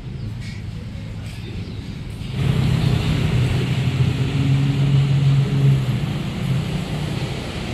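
Street traffic, with a motor vehicle's engine running close by: a steady low drone that comes in sharply about two seconds in and eases off after about six seconds.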